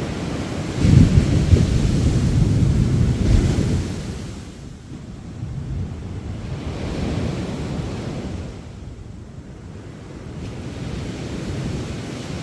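Sea waves breaking on a sandy beach: a wave surges in about a second in, stays loud for a few seconds and then washes out, with weaker swells following.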